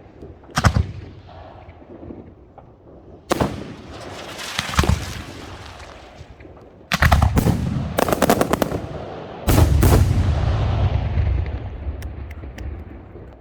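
Large professional (category F4) fireworks going off: single sharp bangs at first, then two dense rapid volleys of shots about seven and nine and a half seconds in, each dying away in a long echoing rumble.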